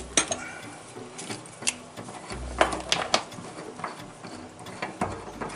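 Irregular clicks, clinks and knocks of hand tools and small faucet parts being handled and set down, with a few low thuds.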